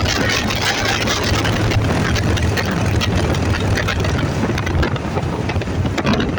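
A motor vehicle running on the move, with a steady low engine drone under heavy wind and road noise.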